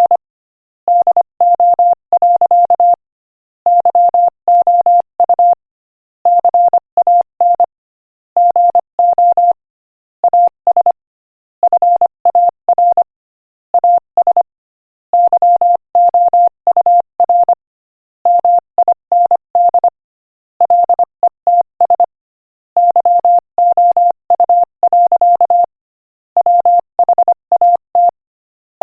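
Morse code at 25 words per minute, spelling out an inspirational quotation: a single steady beep keyed on and off in quick dots and dashes, in groups of one to two seconds with short silent gaps between words.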